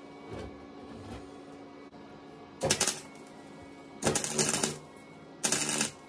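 Wire-feed (MIG-type) welder crackling in three short bursts as it tack-welds the steel wires of a fan guard; the middle burst is the longest.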